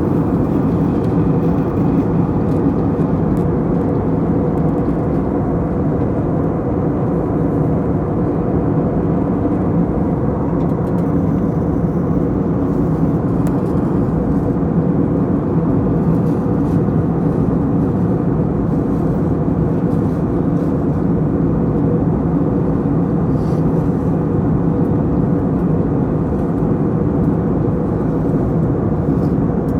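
Steady airliner cabin noise heard from a window seat: the jet engines and rushing air make an even, unchanging drone with a faint hum running through it.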